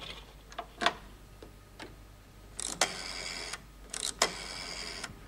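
A manual telephone switchboard being worked by hand: sharp clicks and clacks of its cord plugs and keys. About two and a half seconds in and again about four seconds in, each click is followed by a short buzz lasting about a second.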